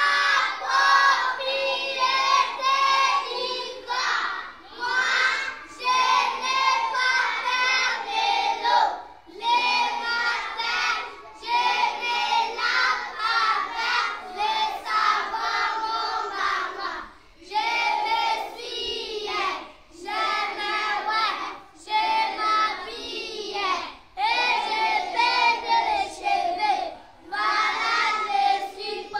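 A children's choir singing a song together in unison, unaccompanied, in phrases separated by short breaths.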